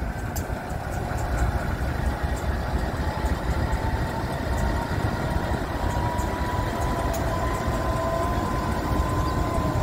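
Pacific National diesel freight locomotives passing slowly close by: a steady heavy engine rumble with the running noise of the train, slowly growing a little louder. A faint thin whining tone slowly rises and another comes and goes in the second half.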